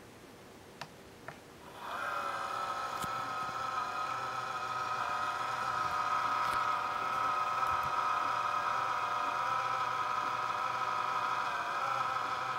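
A couple of faint clicks, then about two seconds in a laptop cooling fan starts with a loud, steady whine in several tones that waver slightly. This is the abnormal noise of a newly replaced fan in an NEC VersaPro VY12F, noisy from its first power-on.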